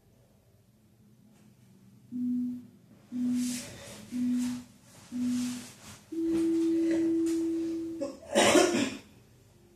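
Workout interval timer counting down: four short low beeps about a second apart, then one long, slightly higher beep that lasts about two seconds and marks the switch to the next interval. Right after it comes a brief burst of rustling noise, the loudest sound.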